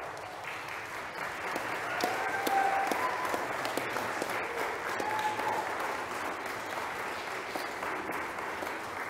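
Wedding guests applauding the couple's first kiss, the clapping building over the first two seconds and then slowly easing off, with a few voices calling out over it.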